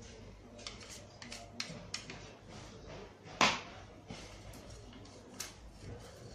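Light metal clicks and taps as a piston and its ring-compressor sleeve are handled, with one louder knock about three and a half seconds in.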